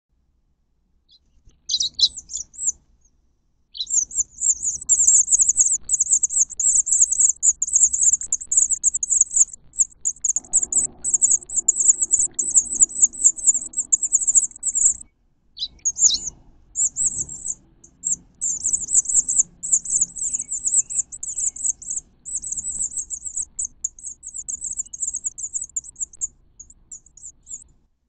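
House finch nestlings, about two weeks old, begging in a rapid, high-pitched chorus of calls while the male house finch feeds them, with a couple of brief breaks.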